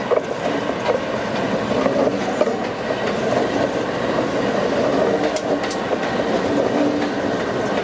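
Aurizon diesel-electric freight locomotives, led by an ACC class unit, passing close by: a steady heavy rumble of engines and wheels on rail, with a few sharp clicks partway through.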